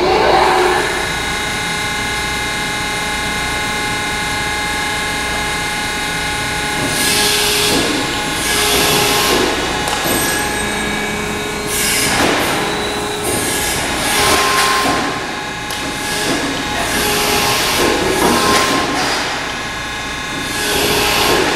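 Thalmann ZR series long folder (sheet-metal folding machine) running through a bend cycle on a J-channel: a steady mechanical whine, with a rush of moving-machine noise several times as its beams move.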